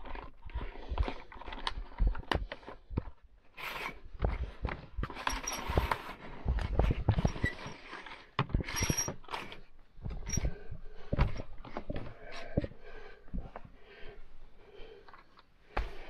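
Curtain hooks being clicked into a ceiling curtain rail and slid along the track: a run of small clicks and rattles, with the curtain fabric rustling in several bursts.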